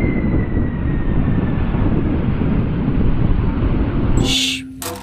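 Four-engined Boeing 747 freighter on final approach with gear down: a steady jet roar with a thin engine whine slowly falling in pitch. It cuts off abruptly about four seconds in.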